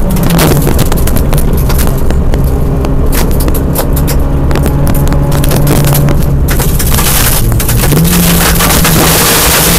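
Rally car at speed on a gravel stage, heard from inside the cabin: the engine runs under load while loose stones rattle and ping off the underside. The engine note drops just after the start, holds steady, then rises again about eight seconds in.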